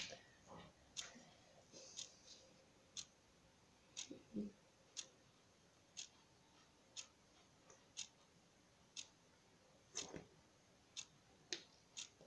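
Near silence with faint, evenly spaced ticks about once a second, and a couple of soft handling sounds.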